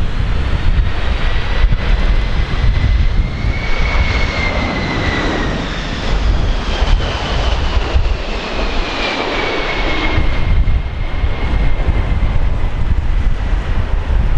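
Boeing 767 twin jet engines on landing approach, passing close by at low power. A high engine whine rises slightly and then falls in pitch as the airliner goes past, over a steady rumble of strong wind buffeting the microphone.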